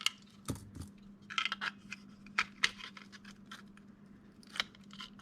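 Small 3D-printed plastic parts and electronics being handled and fitted together: scattered light clicks, taps and scrapes, a few close together about a second and a half in, over a faint steady hum.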